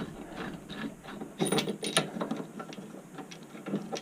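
Irregular light clicks and rattles of small metal hardware being handled, as a pinball machine's leg retaining bracket is worked into place inside the cabinet, with a denser cluster of clicks about a second and a half in.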